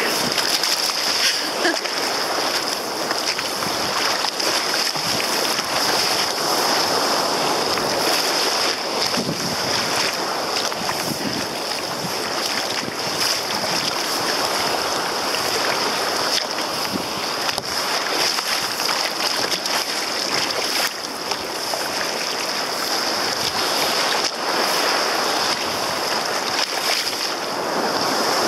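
Sea waves washing and surging, with wind buffeting the microphone and a steady high-pitched hiss underneath.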